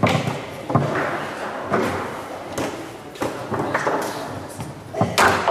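Foosball being played on a Leonhart table: about eight sharp, irregular knocks and clacks as the ball is struck by the plastic men and rods and hits the table walls.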